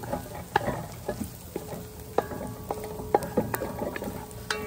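Wooden spoon stirring and scraping chopped onions and hot pepper frying in oil in a large metal pot, with a light sizzle and repeated knocks of the spoon against the pot, some leaving a short ringing tone.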